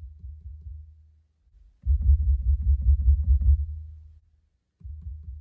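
Rapid finger taps on a cabinet top, picked up by a stationary turntable's stylus and heard through the amplifier and speakers as low, dull thuds, about five a second. This is vibration carried up through the isolation base into the stylus. The thuds come in runs: a quiet run ends about a second in, a much louder run follows from about two to four seconds in, and a quiet run starts again near the end.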